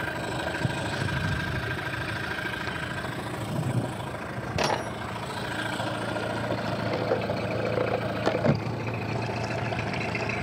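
Mercury two-stroke outboard motor idling steadily, newly repaired and running as it is supposed to sound. Two brief clicks come about four and a half and eight and a half seconds in.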